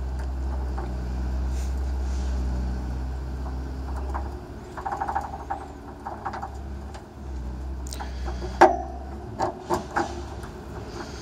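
Key rattling and turning in the lock of a Polski Fiat 126p's rear engine lid: a run of small metallic clicks about halfway through, then several sharp clicks, the loudest about two thirds in, over a steady low rumble.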